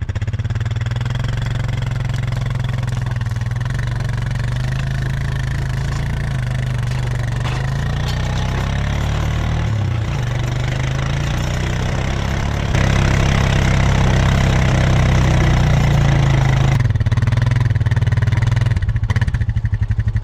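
An ATV engine runs steadily while it tows a log slung in a skidding arch. It gets louder under more throttle about 13 seconds in and eases slightly near the end.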